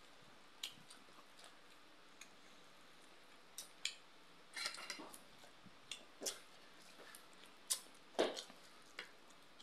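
Eating sounds of pork and rice being chewed: scattered short mouth smacks and clicks, a small cluster of them about halfway through, and a brief louder sound a little after eight seconds in.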